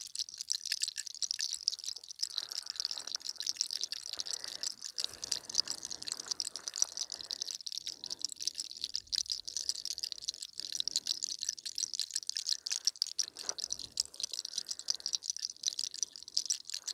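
Bracelets of beads and dangling pieces rattling and clicking on the wrists of hands that are massaging a person's neck: a dense, continuous patter of fine clicks.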